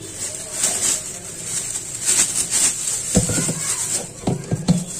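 Live stinging catfish (shing) wriggling in a plastic bowl in a steel sink: scattered wet slaps and knocks, several in quick succession between about three and five seconds in.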